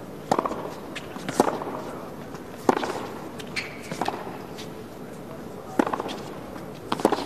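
Tennis rally: six sharp racquet strikes on the ball, about one to two seconds apart, with softer ball bounces between.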